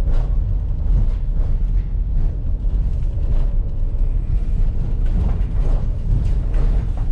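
Turbocharged van driving: a steady low engine and road rumble heard from inside the cab, with scattered light knocks and rattles.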